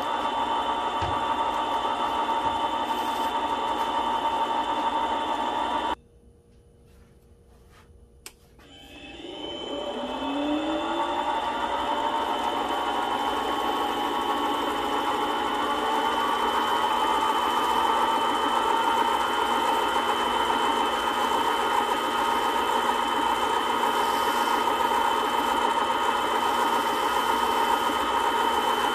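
Small lathe motor spinning a ring on its mandrel with a steady whine. About six seconds in it is switched off and the sound drops away; near eight seconds there is a single click, and the motor spins back up with a rising whine and runs on steadily while the ring is sanded.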